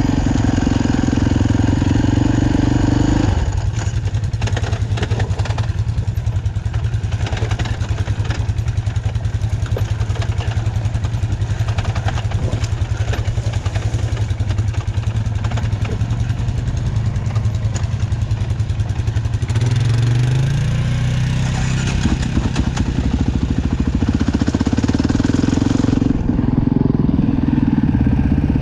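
Dirt bike engine running on a rough trail ride. It is mostly off the throttle and low for the first two-thirds, with light rattling over rough ground, then revs up with a rising pitch and pulls harder under throttle near the end.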